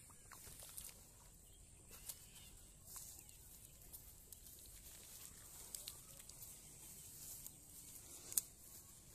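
Faint outdoor ambience with a steady high hiss, and scattered soft clicks and rustles from hands working through wet grass and shallow muddy water; the sharpest click comes near the end.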